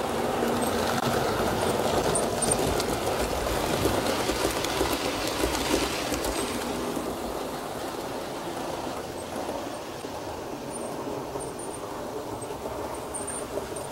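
H0-scale model train running on the layout's track: a steady rumble of wheels and motor, loudest over the first six seconds and then fading gradually.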